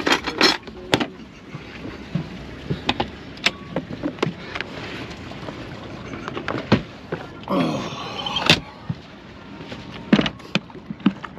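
Scattered clicks and knocks of gear being handled on a fibreglass boat: a console storage hatch opened and a plastic tackle box picked up and carried. A short squeak comes about eight seconds in.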